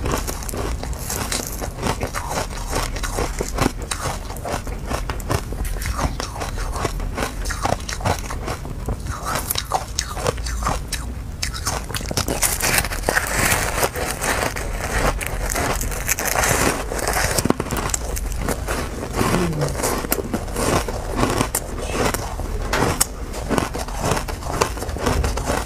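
Powdery, frost-covered frozen ice being bitten and chewed: a dense run of crisp crunches and crackles, heavier from about halfway.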